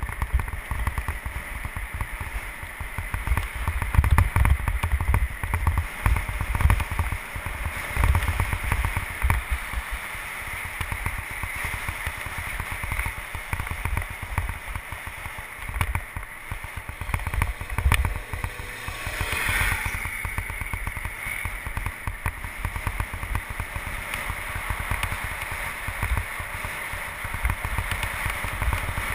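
Wind buffeting the microphone of a camera on a moving bicycle, a steady rush with gusty low rumbling, with a brief louder swell about two-thirds of the way through.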